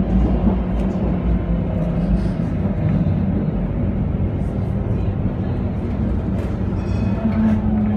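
Tram running along the street, heard from inside the car: a steady low rumble of wheels on rail and running gear, with a faint tone drifting slightly in pitch.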